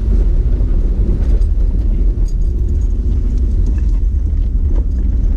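Toyota Altezza's engine and road noise heard from inside the cabin while the car is driven: a steady, heavy low rumble with a constant engine note.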